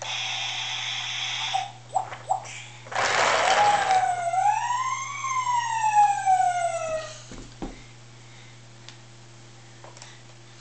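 Toy fire truck's electronic sound effects: a steady buzzy tone for the first couple of seconds, a short hiss about three seconds in, then one siren wail that rises and falls over about three seconds.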